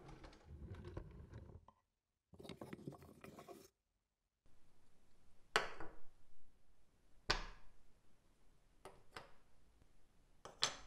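A drawer pulled open, with things rattling inside as it is rummaged. Then small wooden wedges are set down one at a time on a table, each a sharp knock, four in all, about one and a half seconds apart.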